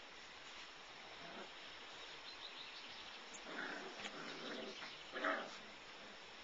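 Five-week-old labradoodle puppies making small growling and whimpering sounds, with two short cries: one a little past halfway and a louder one near the end.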